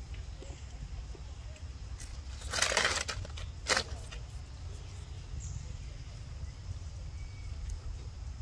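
Outdoor ambience with a steady low rumble, broken by a short burst of rustling noise about two and a half seconds in and a shorter one about a second later.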